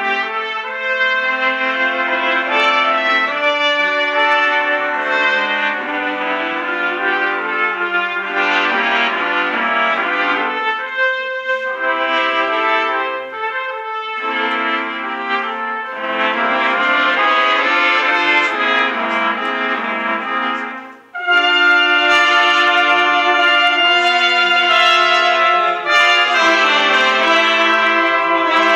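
Brass sextet of five trumpets and a trombone playing sustained chords together. Near the end the sound drops away for a moment, then all come back in louder.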